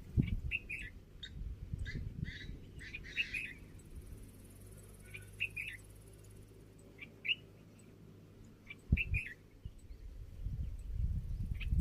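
A bird chirping: short, high chirps in quick clusters of two to four, spread over about nine seconds. Underneath is a low rumble, with a couple of dull thumps about nine seconds in.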